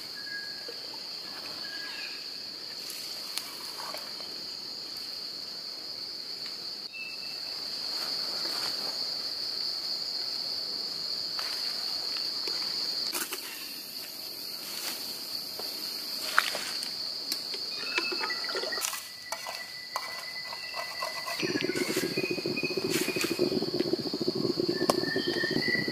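Steady, shrill one-tone chorus of forest insects, with scattered light clicks and knocks. About three-quarters of the way through, a lower, steady rushing noise joins in.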